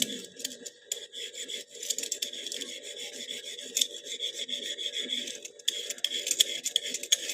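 Vegetable peeler scraping down a raw carrot in a quick, irregular series of short strokes.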